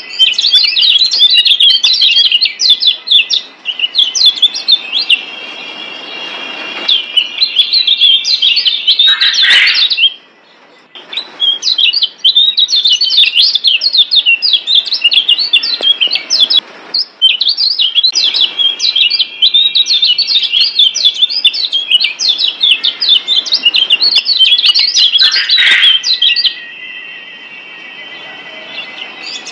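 Lombok yellow white-eye (kecial kuning, a Zosterops) singing a fast, continuous twittering song of rapid high chirps in long runs, with brief lulls about a third of the way in and a quieter stretch near the end.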